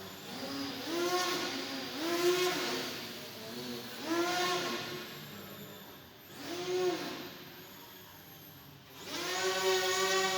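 Electric motor and propeller of a small indoor aerobatic RC airplane, whining up and down in pitch with the throttle in about five surges, the longest near the end.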